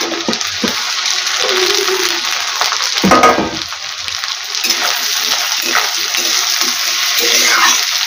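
Potato cubes and sliced onions sizzling in hot oil in a kadai, stirred with a steel spatula that scrapes the pan now and then, loudest about three seconds in.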